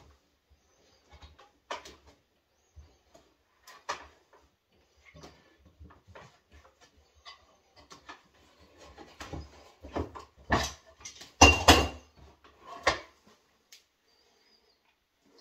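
Scattered light knocks and clicks of a wooden grip handle shifting against a metal bracket clamped to a desk, building to a louder clatter about ten to thirteen seconds in.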